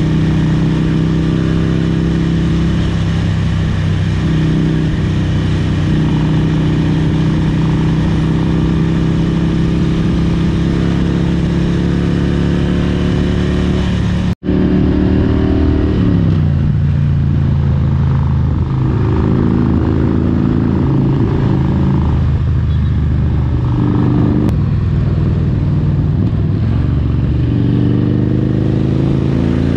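Harley-Davidson Road King's fuel-injected Twin Cam 88 V-twin running at a steady cruise. The sound drops out for an instant about halfway; then the engine note falls as the bike slows, wavers, and rises again near the end as it accelerates.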